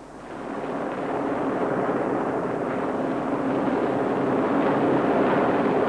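Westland Sea King HAR3 twin-turbine helicopter in flight: steady rotor and engine noise that swells up over the first second or two and then holds.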